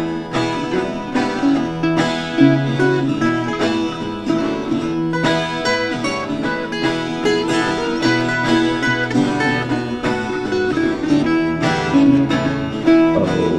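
Instrumental break of a country gospel song in bluegrass style, led by picked acoustic guitar with other plucked strings.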